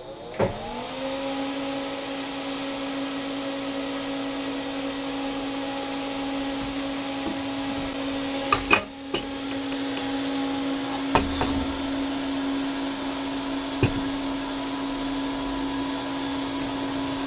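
A click as the homemade CNC controller regains power, then its 120-volt enclosure cooling fan spinning up: the hum rises in pitch for about half a second and settles into a steady tone. A few sharp clicks sound over the hum about halfway through and again later.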